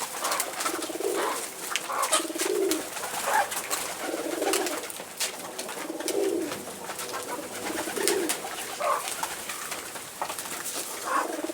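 Domestic pigeons cooing over and over, low warbling coos about once a second, with scattered light clicks in between.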